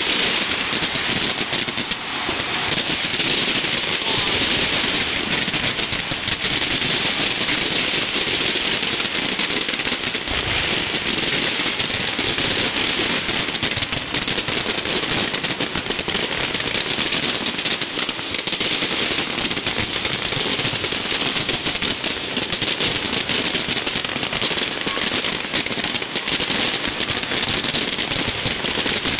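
Aerial fireworks going off in a dense, continuous crackling barrage, countless rapid pops running together without a break.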